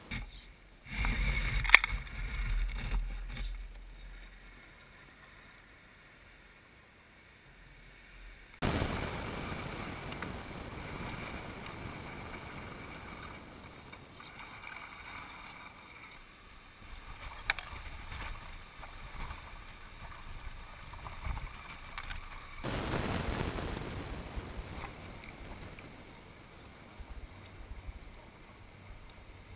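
Wind rumbling on the microphone outdoors, with a loud bump about two seconds in. Behind it is a faint steady high whine that fits the small electric motor and gears of an RC scale Land Rover Defender crawling over dirt.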